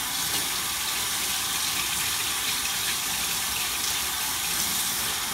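Kitchen faucet running steadily into a stainless steel sink.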